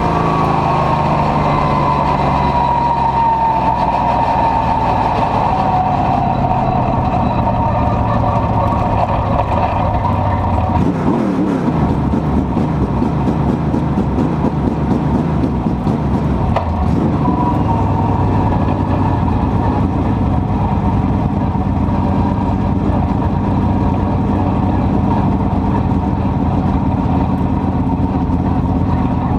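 Dirt-track race car's engine heard from inside the cockpit. Its pitch falls as the car slows over the first several seconds, then it runs steadily at low speed as the car rolls off the track after the race.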